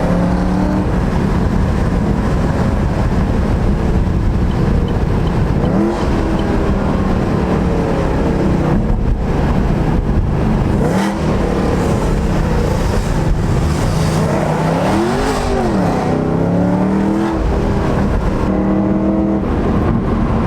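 Straight-piped Chevrolet SS (Holden Commodore) V8 exhaust while driving, its note mostly steady. It revs up briefly about six and eleven seconds in, and rises and falls again around fifteen seconds.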